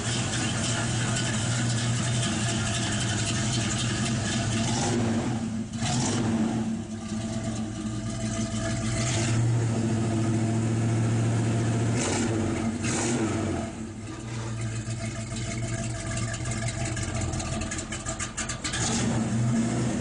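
Buick 455 Stage 1 V8 running steadily through its dual exhaust, with the throttle blipped several times.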